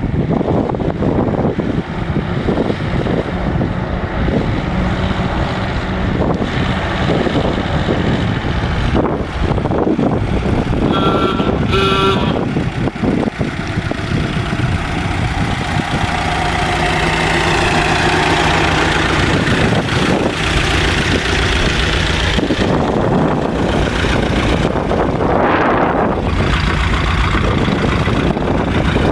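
1923 Lincoln Model L's V8 engine running as the car drives toward and past, then idling steadily at the tailpipe. Two short high tones sound about halfway through.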